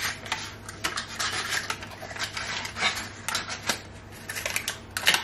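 Paper muffin cases rustling and crinkling in quick, irregular crackles as they are peeled one by one off a stack and set into a muffin tray.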